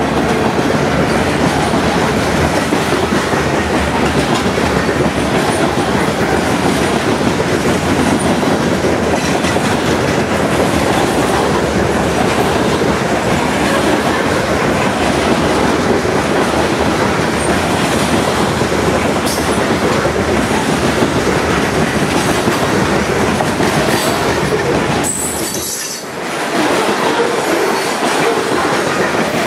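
Freight cars of a Norfolk Southern train, mostly covered hoppers, rolling past close by: a loud, steady clatter of steel wheels clacking over rail joints. The noise dips briefly near the end, then picks up again.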